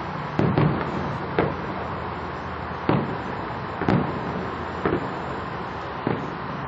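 Distant aerial fireworks shells bursting: a string of about seven sharp booms, irregularly spaced about a second apart, over a steady background noise.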